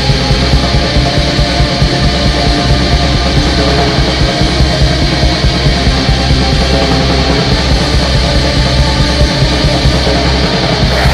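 Black metal music: a loud, dense wall of distorted guitars over drums.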